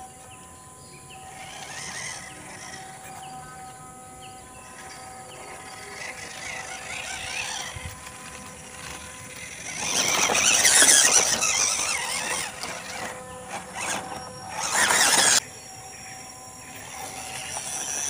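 WPL D12 RC pickup truck's small electric motor and gearbox whining as it crawls over dry leaves and rough ground. It gets much louder and noisier about ten seconds in as the truck passes close by, with a second loud burst a few seconds later that cuts off suddenly.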